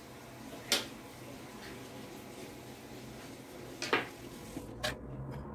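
Two sharp knocks about three seconds apart, with a fainter one near the end, over steady room hiss: a small ceramic bowl knocking on a wooden table as a khinkali dumpling is pleated by hand inside it.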